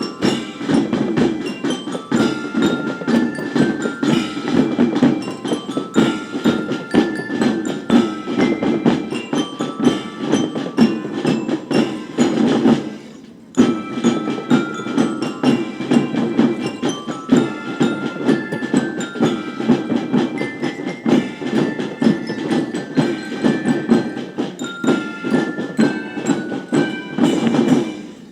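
Marching drum band playing: dense drumming under a high, bell-like melody, with a brief stop about halfway through before the playing starts again.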